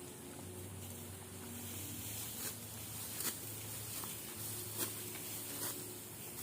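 Rice stalks being cut by hand with a sickle: a few irregular crisp snaps and rustles, over a low steady hum.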